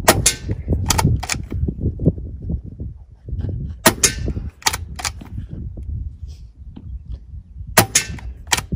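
Gamo Arrow .22 PCP air rifle with a shrouded barrel firing three shots about four seconds apart, each a sharp, fairly quiet crack. Each shot is followed within a second by a couple of short clicks, the rifle being recocked and loaded for the next pellet.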